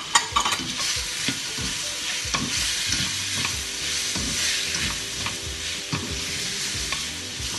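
Bean sprouts, chicken and Chinese sausage sizzling in a stainless steel wok while being stir-fried, with a steady hiss and the spatula scraping and knocking against the pan in short strokes.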